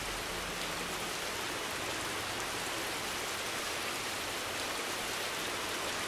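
Steady rainfall as a sound effect, an even rush of rain that holds at one level without breaks.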